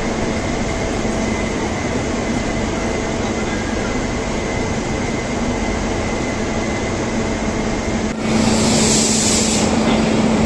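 Steady machinery hum of a stationary electric locomotive, with a held low tone under a noisy drone. About eight seconds in the hum grows louder and a hiss of air lasts about a second and a half.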